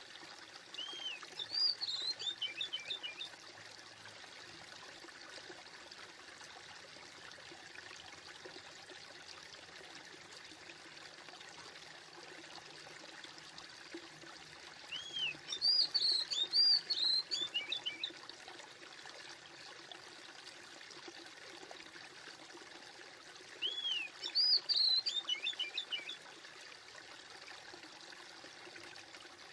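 A songbird sings three short phrases of quick, arched chirps, about a second in, around the middle and near the end, over a steady rush of flowing water like a stream.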